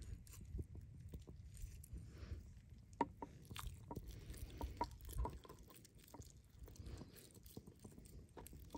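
Raw chicken breast being sliced with a cleaver and pulled open by hand: faint wet squishing and small clicks, with one sharp knock about three seconds in.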